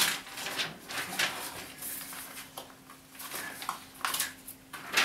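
Handling noises in a small office: scattered short clicks and knocks with rustling, as a paper sign is pinned to a noticeboard, over a faint steady hum.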